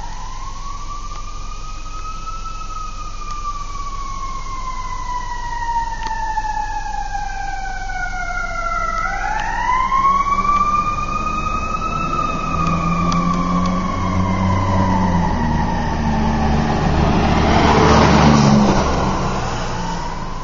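Fire engine siren wailing in long, slow rises and falls. The truck's engine rumble builds and is loudest about three-quarters of the way through as it passes close, then fades.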